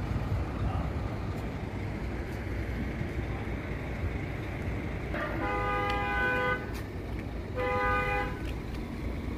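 A vehicle horn sounds twice: a blast of about a second starting some five and a half seconds in, then a shorter one about two seconds later. A steady low rumble runs underneath.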